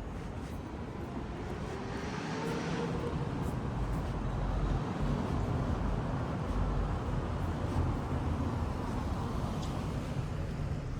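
A motor vehicle running past on the street, a low engine and tyre rumble that grows louder about two seconds in and stays up.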